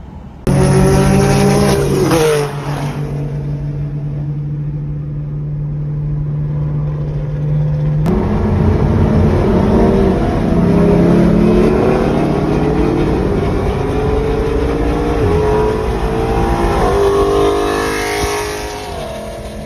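A car engine heard from inside the cabin. It revs up and drops off, then drones steadily. After a cut about eight seconds in, it accelerates hard, its pitch climbing and then falling back at several upshifts in the last few seconds.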